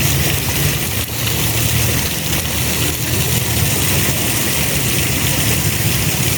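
Steady hiss of falling water with a steady low engine-like rumble underneath; neither changes.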